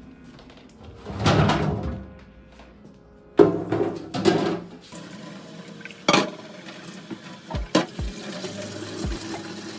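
Household items such as dishes or containers clattering in two bursts, then a few sharp single knocks, over quiet background music.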